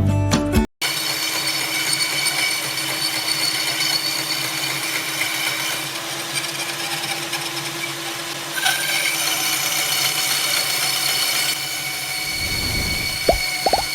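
Electric drill driving a homemade wooden bandsaw, running steadily with a whine over a hiss. The sound grows brighter about halfway through and settles again, and a few clicks come near the end.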